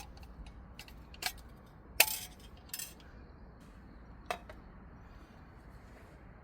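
A handful of light, sharp clinks and knocks, some ringing briefly, the loudest about two seconds in, over a faint steady low hum.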